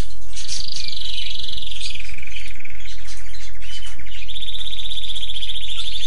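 A songbird singing long, rapid trills: the first falls slowly in pitch over about three seconds, then a higher trill starts about four seconds in and holds steady. A low electrical hum runs underneath.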